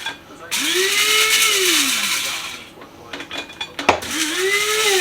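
Electric coffee grinder grinding espresso beans fine in short pulses: each burst the motor spins up, rising in pitch, then winds down and falls away, with a click just before the second burst.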